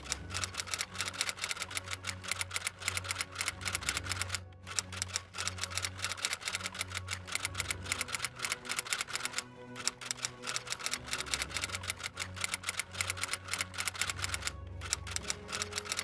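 Typewriter key-clicking sound effect, a rapid run of clicks with short breaks about four and a half, nine and a half and fourteen and a half seconds in, accompanying text typed out letter by letter. Soft background music with a steady bass runs underneath.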